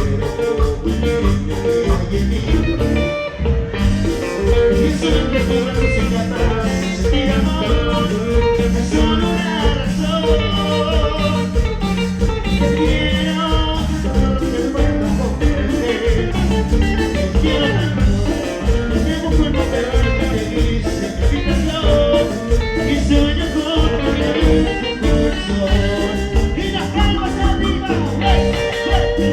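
Live Latin dance-band music, a steady beat under a wavering lead melody, played by a group on stage.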